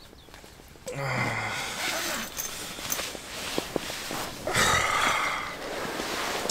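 A man's drowsy waking groan and breathy sighs as he stretches, with a sleeping bag rustling as he pulls his legs out of it.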